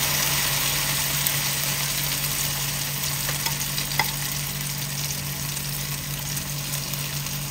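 Beaten duck egg with mushrooms sizzling steadily in hot oil in a nonstick wok, stirred with a spatula at first, with a light click about four seconds in.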